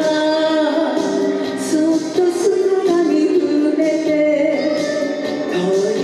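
A woman singing a Japanese enka duet line solo over a karaoke backing track.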